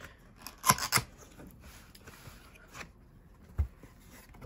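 Cardboard box of a Sony SRS-XB43 speaker being opened: two sharp snaps about a second in as the lid's locking tabs are pulled free, then cardboard rustling as the lid is lifted, and a low thump near the end.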